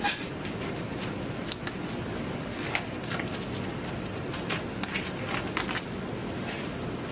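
Disposable gloves being pulled on and snapped into place: scattered short rustles and snaps over a steady background hum.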